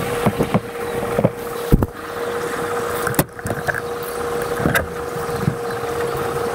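Irregular knocks and rustles as painted boat poles are handled and set down on a dust-sheeted narrowboat roof close to the microphone, over a steady hum.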